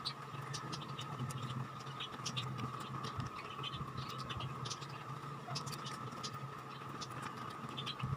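A person eating by hand: scattered small clicks, scrapes and chewing noises as fingers work rice and fish on a plate, over a steady low hum.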